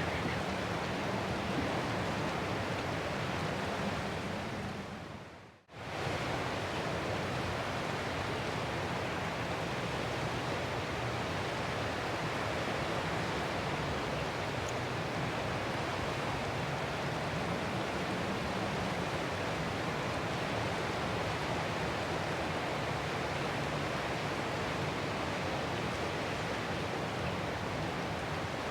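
Ocean surf as a steady, even wash of noise with no distinct breaking waves. About five seconds in, it fades quickly down to silence and snaps back within a second.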